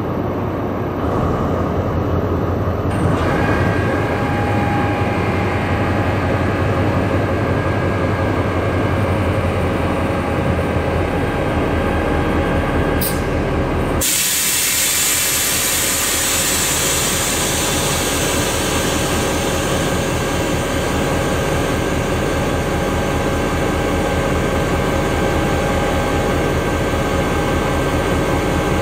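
Siemens ER 20 (class 223) diesel-electric locomotive running while standing, a steady hum with several held tones. About halfway through, the sound abruptly turns hissier.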